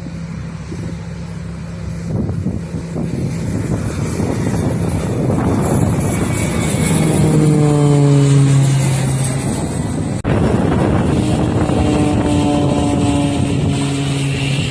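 Turboprop aircraft flying past: the propeller and engine note swells and its pitch falls as it passes, then the sound breaks off abruptly about ten seconds in and a second falling-pitch pass follows.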